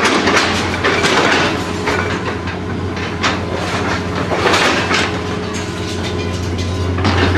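Heavy demolition machinery: a diesel engine running steadily under irregular crunching and clattering of broken building debris, several loud crashes spread through.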